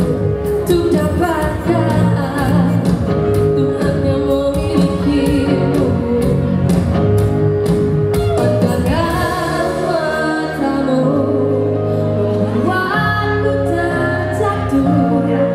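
Live pop-rock song played by a band through the concert sound system, with a woman singing. The drum beat drops out for a few seconds past the middle, leaving sustained low notes under the vocal.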